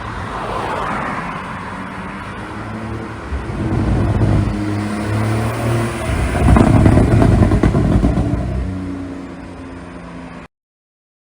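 2020 Porsche 911 (992) Carrera's twin-turbo flat-six running and revving with a pop-and-crackle ECU tune, the exhaust crackling through the loudest stretch about six to eight seconds in. The engine note then falls away and the sound cuts off abruptly near the end.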